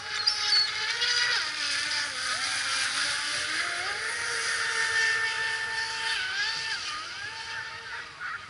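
Big-scale radio-controlled speedboat with a Turnigy T20 730kv brushless motor, whining as it runs across the water over the hiss of the hull and spray. The whine's pitch rises and falls with the throttle, and it grows fainter near the end as the boat moves away.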